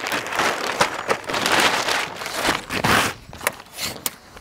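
Cheap plastic tarpaulin being unfolded and spread across a table, the stiff sheet crinkling and rustling in quick irregular bursts, which ease off near the end.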